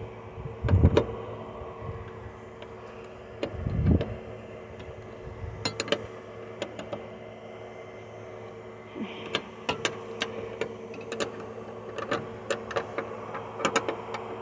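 Irregular light metallic clicks and clinks of hand tools working a small fitting at the truck's solenoid terminal, with two dull thumps about a second and four seconds in and a steady faint hum underneath.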